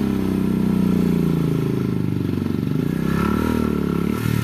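Motorcycle engine labouring under load as the bike climbs a steep, loose dirt slope, its revs rising and falling.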